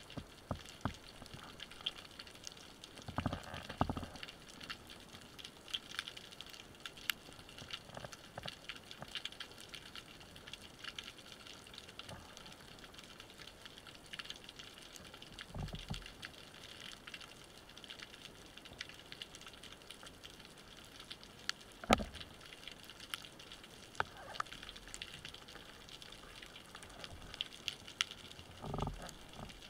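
Underwater ambience over a rocky seabed: a steady faint crackle of scattered clicks, with a few low, muffled thumps, the loudest about two-thirds of the way through.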